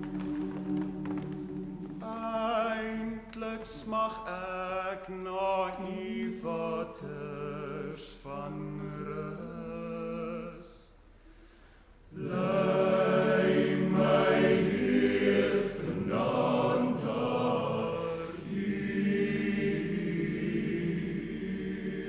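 Male choir singing a cappella in sustained chords with a melody over them. The voices drop out briefly about eleven seconds in, then the full group comes back in louder.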